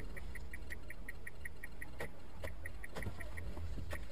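Inside a moving car: a steady low engine and road rumble with a fast, even run of short high electronic beeps or ticks, about five a second, from the car's own signal or warning sounder. The beeps pause briefly near the end, and a few sharp knocks come from the cabin.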